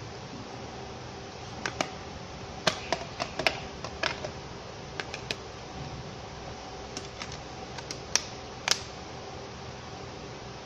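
Sharp plastic clicks and snaps as a battery is pressed into a Micromax Q440 smartphone and its plastic back cover is snapped on, in an irregular run of a dozen or so clicks, over a steady background hum.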